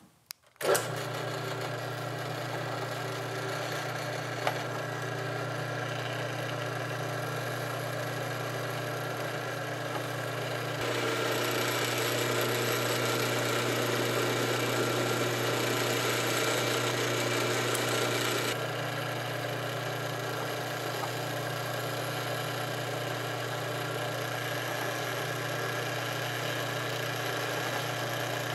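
Drill press motor running steadily. From about 11 to 18 seconds in, the bit cuts into quarter-inch acrylic sheet, adding a louder cutting noise over the motor.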